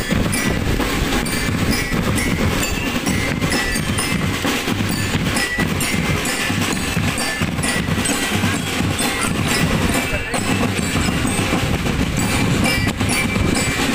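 A marching drum band playing: snare and bass drums drive a steady beat while bell-lyre (glockenspiel) notes carry the melody.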